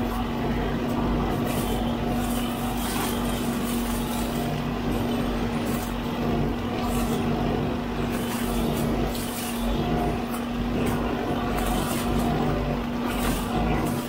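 Hydraulic brush-cutter head on a Huddig 960C6 backhoe loader's boom running steadily through roadside grass and brush. Its spinning head and the machine's diesel engine make a steady hum, with repeated bursts of hiss as it cuts vegetation.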